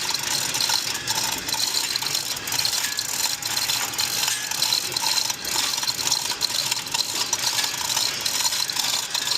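Continuous rapid mechanical clicking and rattling, unbroken throughout.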